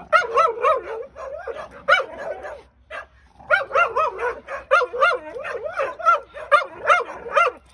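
Pit bulls play-barking during a rope-toy tug of war: short barks two or three a second, with a brief pause about three seconds in.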